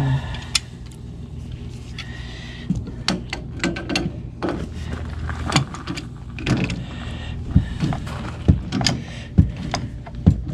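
Metal pliers clicking and scraping on a brass water-line fitting as the cold-water connection to an electric water heater is tightened. Irregular sharp clicks and clinks come every second or so, over a steady low hum.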